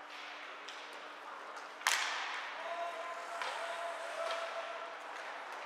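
Ice hockey play in a rink: one sharp, echoing crack of a puck impact about two seconds in, with lighter stick and skate clicks and faint calling voices.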